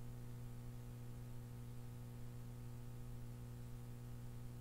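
Steady low electrical hum with faint hiss underneath, unchanging throughout: room tone with mains-type hum.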